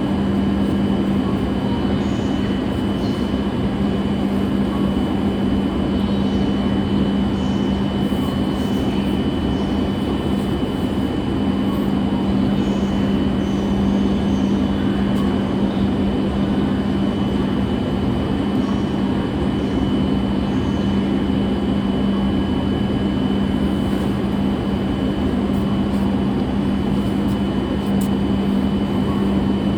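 Steady running noise inside a Shinkansen bullet-train carriage at speed: an even rush with a constant low hum and a faint high whine.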